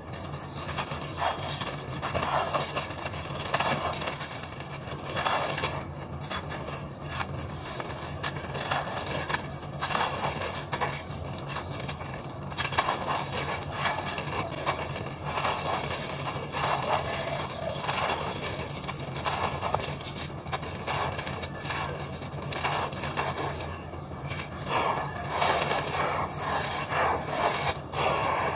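Dry sand-cement blocks crumbling in bare hands: gritty crunching and crackling as chunks break apart, with loose grit and powder pouring and being raked across a powdery floor. It comes in irregular swells every second or two.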